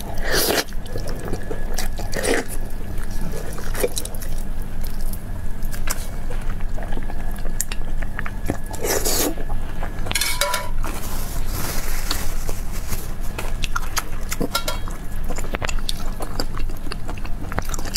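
Close-miked wet eating sounds: biting, chewing and sucking on soft, gelatinous meat soaked in chili-oil broth, with sauce dripping. There are many small wet clicks and a few louder slurps, near the start and at about 2, 9 and 10 seconds.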